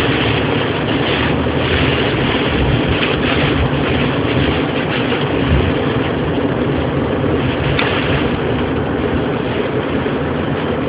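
Hailstorm with heavy rain: hail and rain pelting down in a loud, steady, dense din without letup.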